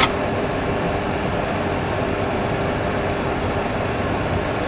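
Steady rushing cockpit noise with a faint low hum from a Boeing 737 Classic flight simulator, the simulated engine and airflow sound of the climb after a go-around. There is a short sharp click right at the start.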